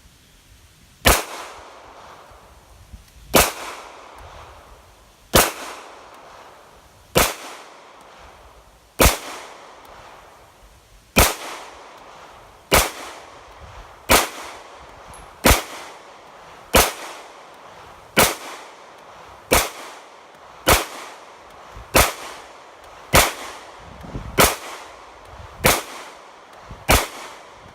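Sig Sauer P320 pistol fired in slow, deliberate single shots, about eighteen in all. Each report has a short echo. The shots start about two seconds apart and quicken to roughly one every second and a quarter.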